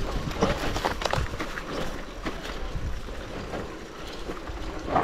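Electric mountain bike riding down a rough dirt trail, frame and chain rattling in irregular quick knocks over the ground, with wind noise on the microphone.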